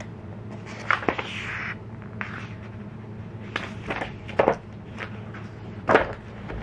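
Paper sketchbook pages being handled and flipped: a rustle about a second in, then several short sharp paper snaps and flicks, the loudest near the end, over a steady low hum.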